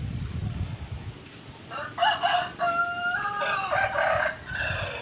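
A rooster crowing once: a long call that starts about two seconds in and runs for about three seconds.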